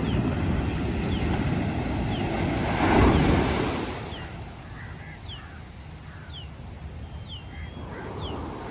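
Ocean surf: a wave breaks and washes in, loudest about three seconds in, then falls back to a softer hiss of wash. Short, high, falling bird chirps repeat about once a second over it.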